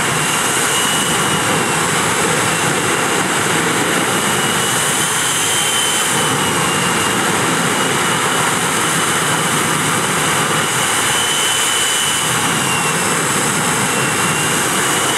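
Jet truck's Allison J33 turbojet engine running flat out in a loud, steady roar. A high whine over it wavers slowly up and down in pitch.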